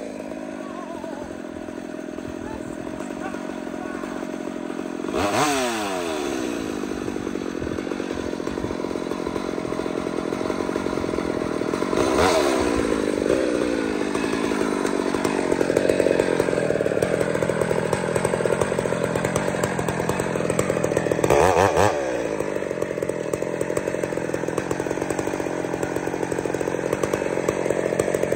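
Ironhorse-built hybrid Husqvarna chainsaw running at full throttle while bucking a large log, with a steady engine note that swings briefly in pitch three times, about 5, 12 and 21 seconds in.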